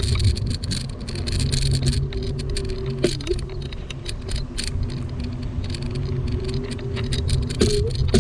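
Electric scooter riding over an asphalt path: a steady low rumble of the wheels and air, with a faint motor whine that wavers a little in pitch and scattered light clicks and rattles.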